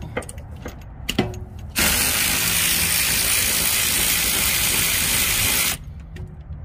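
A few clicks from a ratchet on a rear brake caliper bolt. Then, about two seconds in, a cordless ratchet runs as one steady, loud whir for about four seconds and cuts off suddenly.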